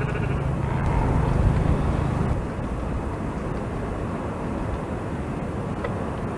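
Outdoor ambience: a low rumble that eases off about two seconds in, leaving a steady hiss.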